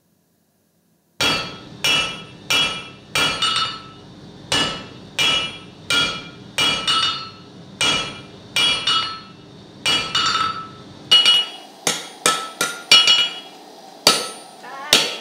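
Blacksmith's hammer striking hot iron on an anvil, starting about a second in: a steady run of sharp, ringing blows at about one and a half to two a second, with one short pause.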